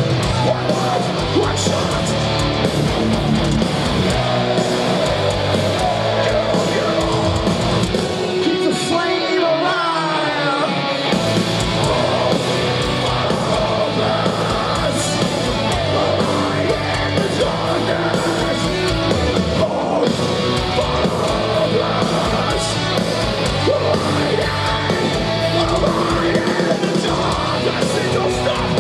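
Metal band playing live at full volume, heard from the crowd: distorted electric guitars, drums and shouted vocals. About nine seconds in, the low end drops out for a couple of seconds under a sliding guitar note, then the full band comes back in.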